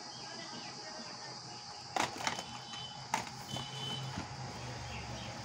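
Plastic cassette cases clacking a few sharp times as a hand rummages through a pile of sealed audio cassettes. Under it runs a steady high background hiss and a low hum, with faint high-pitched tones twice.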